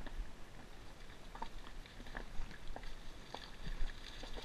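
Dogs drinking and wading in a shallow muddy puddle: faint, irregular small splashes and clicks.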